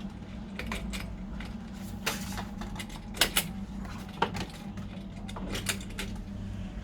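Scattered sharp plastic clicks and knocks as PVC vertical blind slats are snapped onto the headrail's carrier hooks, with two quick clicks about three seconds in.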